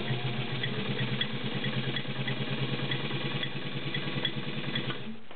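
White model 265 all-metal sewing machine, with its 1.3 amp motor and a walking foot, running steadily as it stitches through a couple of layers of leather. The motor hums under a regular ticking of the needle mechanism, about two or three ticks a second. It stops about five seconds in.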